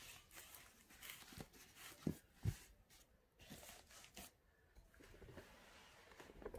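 Faint rustling of a shiny metallic-fabric costume t-shirt being turned over and smoothed flat by hand, with two short knocks a little past two seconds in.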